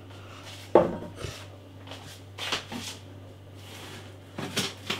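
Glass beer bottles being handled and set down on a table. There is a knock about a second in, then lighter knocks and some scraping or rustling, with a faint steady low hum underneath.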